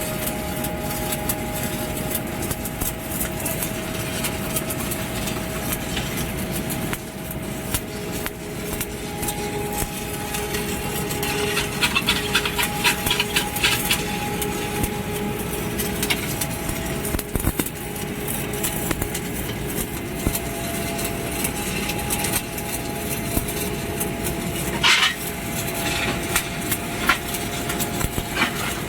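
Stick (arc) welding on structural steel: the arc crackles and sputters steadily, with a steady hum underneath and a brief sharper burst about 25 seconds in.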